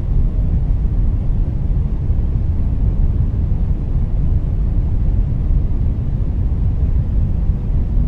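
Steady, deep rumbling noise, the ambient noise bed of a whale-song relaxation track, with no whale call heard in this stretch.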